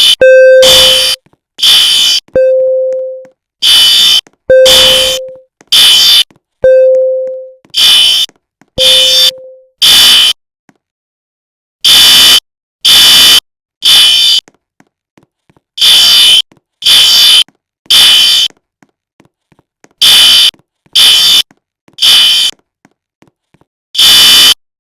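Fire alarm horn sounding harsh, buzzy blasts in the three-pulse temporal evacuation pattern: three half-second blasts, then a pause, over and over. A low tone lingers briefly after several of the blasts in the first half. The alarm stops after one blast near the end.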